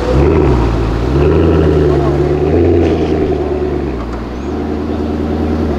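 Maserati GranTurismo's V8 running at low revs as the car pulls away, with a brief rise and fall in pitch right at the start and the engine note dropping lower about four seconds in.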